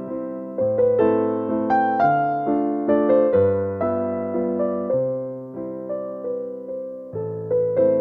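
Background piano music: a gentle melody of struck notes over slow bass notes, each note ringing and fading.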